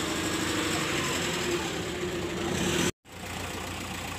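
Heavy diesel engine idling steadily. The sound drops out for an instant about three seconds in, then an engine idles on, a little lower and steadier.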